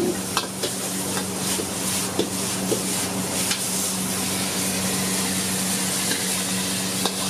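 Sweet and sour pork sizzling in a wok while a metal ladle stirs it and scoops it out, with sharp clinks of the ladle against the wok now and then. A steady low hum runs underneath.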